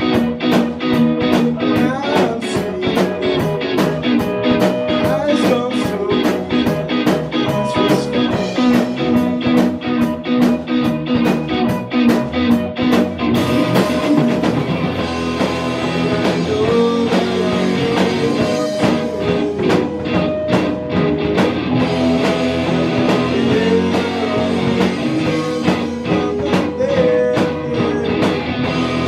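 Blues-rock music: guitar over a steady drum beat.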